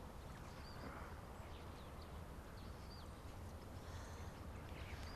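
Faint background ambience: a steady low hum with scattered short, high bird chirps.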